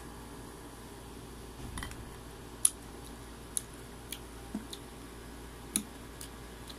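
Raw green mango strips being handled in a glass dish and eaten: a few scattered sharp clicks and crunches, and a brief soft rustle about two seconds in, over a faint steady hiss.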